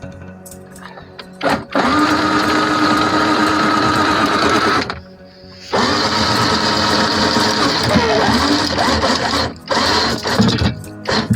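Electric anchor windlass running in two steady runs with a short stop between them, its motor whirring up to speed each time as it hauls in the anchor chain.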